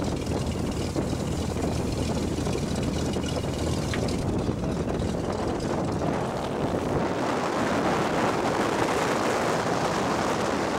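Small propeller plane's engine running, heard from inside the cabin: a steady low drone mixed with rushing wind noise. The rushing grows louder about halfway through as the plane rolls along the runway.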